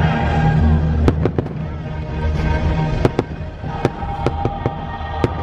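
Fireworks going off in a quick run of sharp bangs, starting about a second in, over loud show music with sustained notes.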